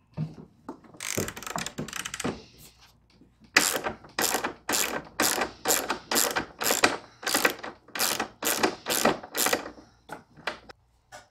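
Hand socket ratchet wrench clicking as it backs out a bolt on a lawn mower deck. A quick run of clicks about a second in, then steady ratcheting strokes, roughly three a second, that thin out near the end.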